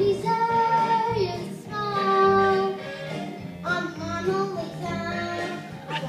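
A boy singing a song into a microphone over instrumental accompaniment, with several long held notes.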